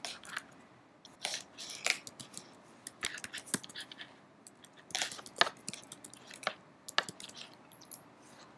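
Computer keyboard being typed on: irregular single key clicks, some sharper than others, coming in small runs with short pauses.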